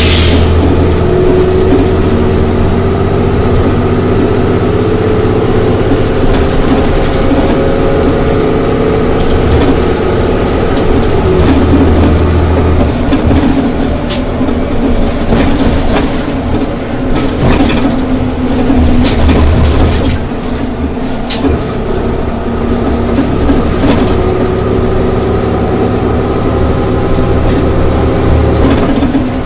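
Cummins Westport ISL G natural-gas engine of a Daimler Orion VII CNG transit bus running under way, its note shifting a few times as the bus speeds up and eases off. Scattered short knocks and rattles come through over the engine.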